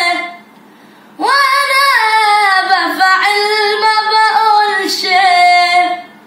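A boy singing a cappella in a high voice. After a short pause he comes in again about a second in, holding long, gently wavering notes, and breaks off near the end.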